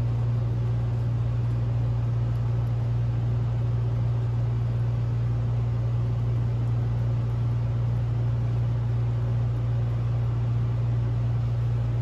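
A steady low hum with a faint hiss over it, unchanging in level.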